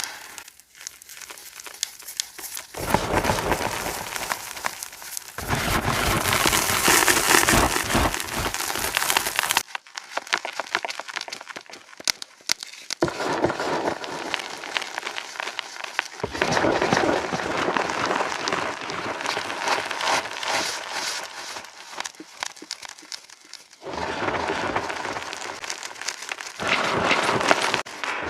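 Pebbles of reformed gym chalk being crushed: a dense, crisp crackling and crunching, with an echo effect added. The sound cuts abruptly between takes several times.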